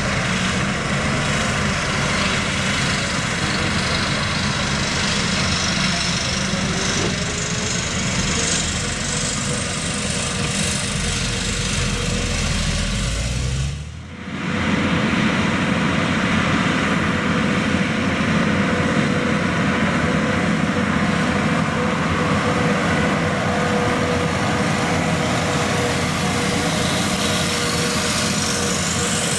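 John Deere 9520RX tracked tractor's Cummins 15-litre six-cylinder engine running steadily under load as it pulls a loaded fertilizer spreader, with a low rumble and a thin steady whine. The sound dips briefly about halfway through, then carries on the same.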